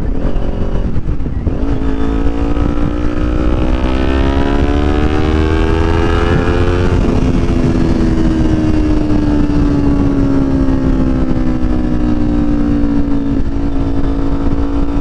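Kawasaki Ninja 400's parallel-twin engine under way. Its note climbs steadily for several seconds, drops sharply about halfway through as it shifts up a gear, then sinks slowly as the bike eases off, over a steady low rumble.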